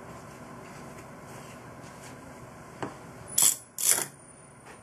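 A metal clamp being fitted onto wooden jig rails: a light click, then two sharp metallic clacks about half a second apart, a little over three seconds in.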